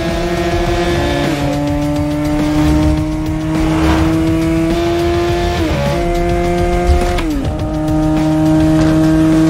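Racing motorcycle engines at high revs under hard acceleration. The pitch climbs slowly and drops sharply with upshifts about a second in, near six seconds and again at about seven seconds.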